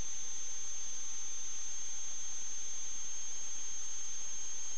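Steady high-pitched electronic whine with a fainter lower whine beneath it, over a constant hiss: electrical noise on the sewer-camera recorder's audio line, with no other sound.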